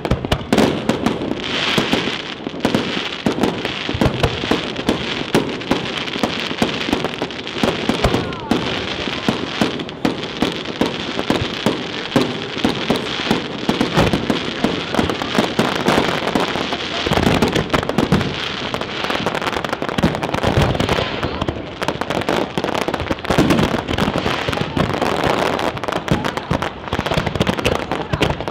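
Aerial fireworks going off in quick succession: a dense, unbroken run of bangs and crackle, several a second.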